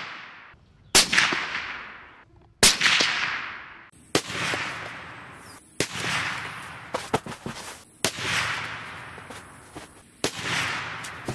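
A string of suppressed .308 Winchester rifle shots from a Ruger American bolt-action, about six of them spaced a second and a half to two seconds apart. Each sharp report is followed by a long echo that fades away.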